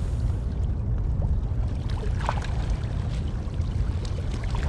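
Wind buffeting the microphone: a steady low rumble throughout, with a faint short sound about two seconds in.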